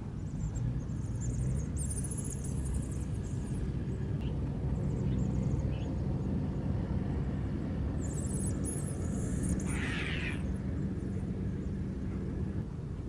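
Steady low rumble of outdoor background noise, with short high bird chirps a couple of seconds in and again around eight seconds, and a brief rasping sound about ten seconds in.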